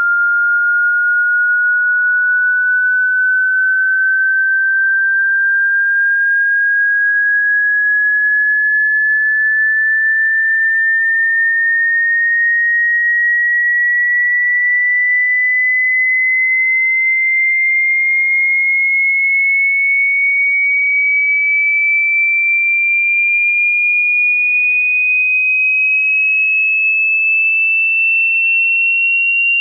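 A pure sine test tone from a hearing-test frequency sweep, gliding slowly and steadily upward from about 1.4 kHz to about 3 kHz at a constant loud level. It has passed through YouTube's audio compression, which the uploader finds makes the tone's level pump slowly and adds faint side bands at these frequencies.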